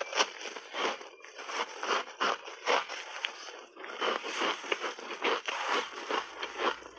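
Crunching of shaved ice coated in milk powder being bitten and chewed: a dense, irregular run of crisp crunches and crackles.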